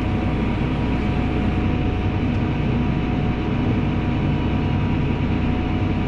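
John Deere 8260R's 9.0-litre PowerTech six-cylinder diesel running steadily, heard from inside the tractor cab while the tractor is manoeuvred slowly.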